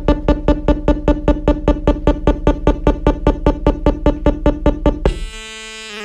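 Synthesizer playing a fast pulsing tone that repeats about five times a second. About five seconds in it cuts to a steady drone of held tones.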